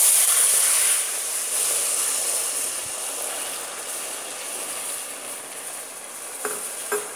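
Water poured into a pot of molten caramelised sugar, hissing loudly with steam as it hits the hot caramel, then slowly dying down. Two light knocks near the end.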